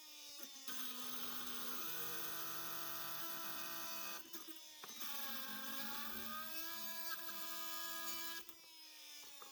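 Milwaukee M18 Fuel brushless oscillating multi-tool running with a carbide blade, cutting through wood and screws. Its steady whine dips in pitch as the blade loads up and then recovers, several times over.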